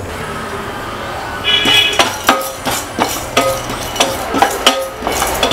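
Wooden spoon stirring pumpkin seeds in a dry stainless-steel pan while they roast, knocking against the metal several times a second with a short ring after each knock. The knocking starts about a second and a half in.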